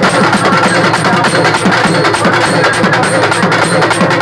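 Urumi melam drum ensemble playing a fast, dense rhythm: rapid drum strokes with the short gliding, moaning tones of the urumi, and a metallic ringing on top.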